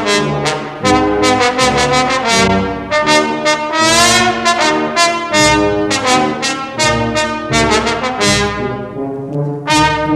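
Brass-band music with trumpets and trombones: a tune of short notes over a repeating bass line.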